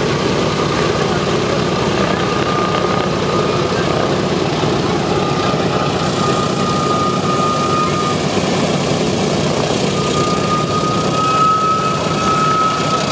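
Boeing B-17 Flying Fortress's four Wright R-1820 Cyclone radial engines running steadily as the bomber taxis, with a thin high whine coming and going over the drone.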